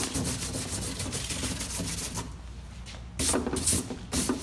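A hand rubbing masking-tape adhesive residue off the painted front end of a pedal car, a quick run of short scratchy strokes. They ease off a little past the middle and come back louder near the end.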